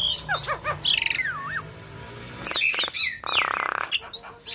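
Javan myna (jalak kebo) singing a varied song of rising and falling slurred whistles mixed with sharp clicks. A harsh rasping buzz comes a little after the middle, about three seconds in.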